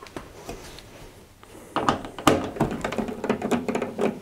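A screwdriver undoing screws from the sheet-metal heater cover on the back of a Zanussi tumble dryer: metal clicking, grinding and rattling that start about two seconds in.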